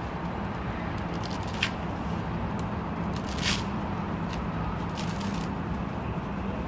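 Fibrous husk of a dried coconut being torn away from the nut by hand: several brief tearing rustles, the strongest about three and a half seconds in, over a steady low hum.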